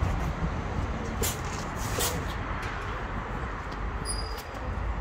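Outdoor street ambience with a steady low rumble, and a couple of soft crunches from a cat chewing dry kibble in the first half. A brief high-pitched tone sounds about four seconds in.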